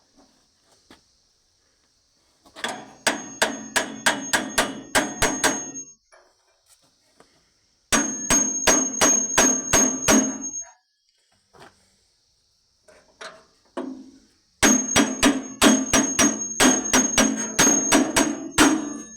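Hammer blows ringing on steel, likely a chaff cutter part being knocked into shape during repair, in three runs of quick strikes about four a second with short pauses between.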